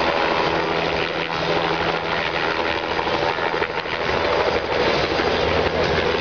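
A helicopter with a two-bladed main rotor hovering and flying low and close, its rotor and engine running steadily with a low rotor beat.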